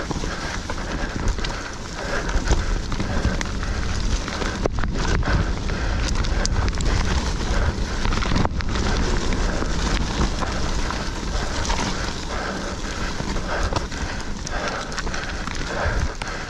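Mountain bike riding fast down a loose dirt woodland trail: continuous tyre noise on the dirt with wind rumble on the camera microphone, and frequent clicks and rattles from the bike over bumps and roots.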